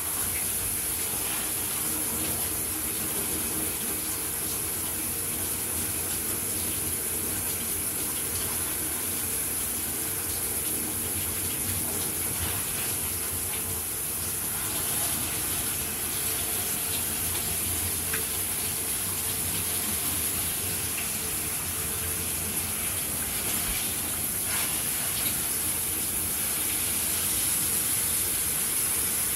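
Shower running steadily: water spraying from the showerhead and splashing, with a low hum underneath.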